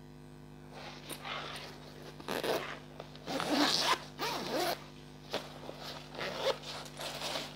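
Zipper on a fabric school backpack being pulled along its track in several short runs, the longest a little past the middle.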